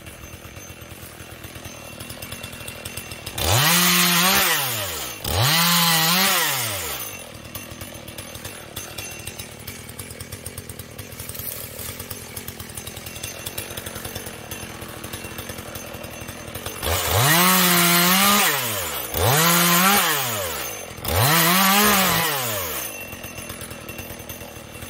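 Chinese-made two-stroke chainsaw idling. It is revved to full speed five times for a second or two each: twice a few seconds in, then three times in quick succession in the second half.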